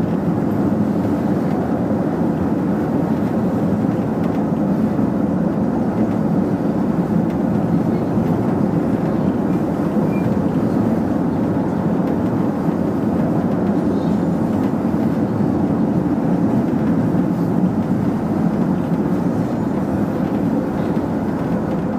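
Manila LRT Line 1 train running steadily along elevated track, heard from inside the driving cab: a continuous, even rumble of wheels on rail and running gear.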